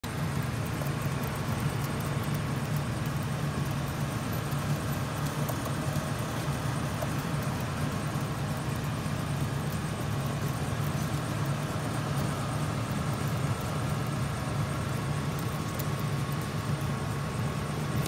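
Steady low mechanical hum with a faint, even whine above it. The sound does not change.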